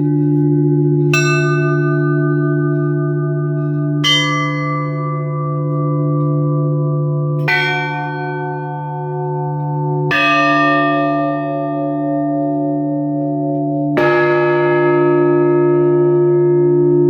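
Church bells tolled for a funeral service: five single strokes a few seconds apart, each on a different bell and ringing on long after the strike. A large bell's deep steady hum sounds under them throughout.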